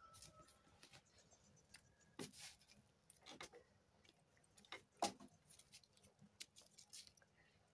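Near silence broken by faint, scattered crackles and clicks from a small open wood cooking fire, with one sharper crack about five seconds in.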